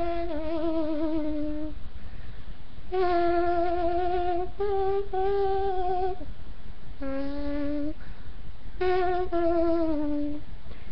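A slow tune in a trumpet-like tone: held notes with a wavering vibrato, played in short phrases with brief breaks between, and one note sliding down in pitch about six seconds in.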